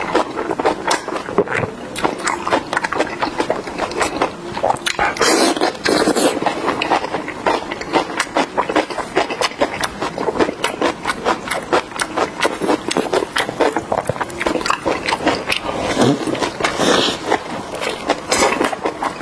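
Close-miked wet chewing and crunching of spicy cabbage kimchi and Korean rice sausage: a dense, rapid run of mouth clicks and smacks, with louder stretches about five seconds in and near the end.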